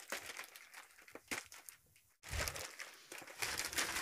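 Thin plastic bag wrapping crinkling and rustling as it is handled and pulled off a cardboard toy box, in irregular crackles with a brief silent gap about halfway through.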